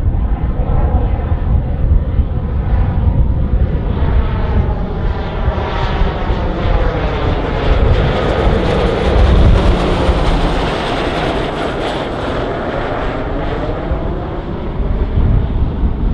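Pilatus PC-21 turboprop trainer, a Pratt & Whitney Canada PT6A turbine driving a five-blade propeller, flying low overhead with its gear down. The drone swells to its loudest as the plane passes overhead about eight to ten seconds in, with a phasing sweep and a thin high whine that drops in pitch. It eases off as the plane heads away.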